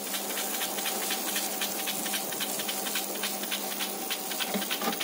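Film-projector sound effect: a steady hiss and low hum with rapid clicking running under it.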